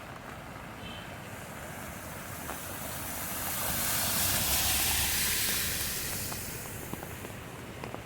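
Steady rain, with a vehicle passing through floodwater on a waterlogged road: a rising and falling hiss of tyre spray and a low rumble that peak about halfway through, then fade.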